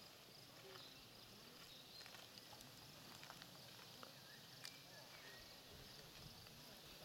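Near silence: faint meadow ambience with a steady high chirring of insects and a few soft ticks.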